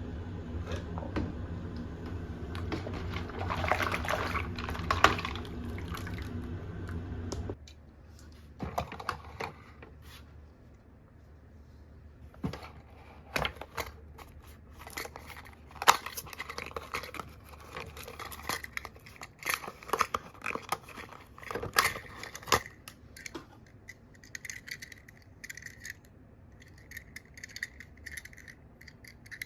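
Die-cast toy minicars and their plastic case being handled: scattered sharp clicks, taps and light scrapes of metal and plastic. A steady low hum lies under the first few seconds and cuts off suddenly about seven seconds in.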